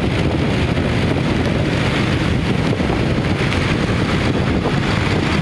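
Steady road-traffic rumble mixed with wind buffeting the microphone while moving, with no distinct events.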